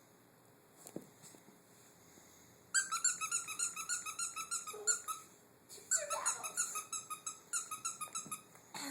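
Dog's squeaky toy squeaking over and over as a puppy chews it, in two quick runs: the first starts about three seconds in, and after a short pause the second runs until near the end.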